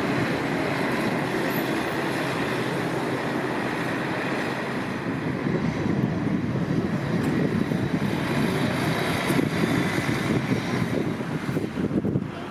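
City buses driving past, first an articulated bus and then a standard one, with steady engine and tyre noise. The noise grows more uneven in the second half.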